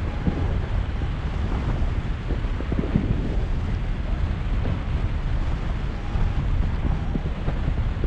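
Wind from the paraglider's airspeed buffeting a camera microphone in flight: a steady, heavy low rumble of wind noise that swells and dips.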